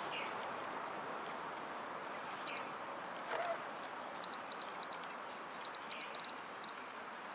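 A string of short, high electronic beeps, all at one pitch, coming irregularly: one about two and a half seconds in, then a quick cluster of seven or eight over the next few seconds, over a steady background hiss.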